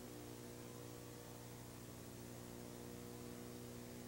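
Faint steady electrical hum, several fixed tones held without change, over a layer of hiss.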